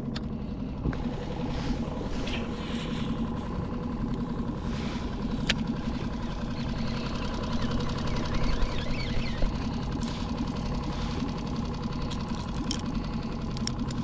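Small outboard motor idling steadily, with a couple of brief sharp clicks.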